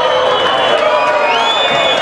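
Football crowd cheering and shouting in celebration, many voices overlapping in a steady din.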